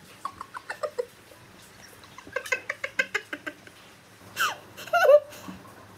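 A woman laughing hard in quick bursts, with a few higher, falling laughs near the end.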